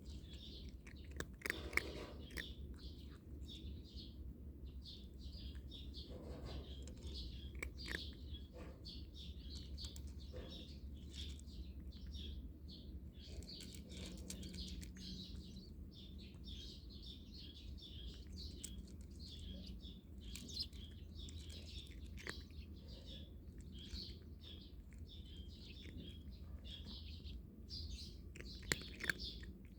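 Small birds chirping in quick, short calls over and over. A few sharp clicks come about two seconds in and again near the end.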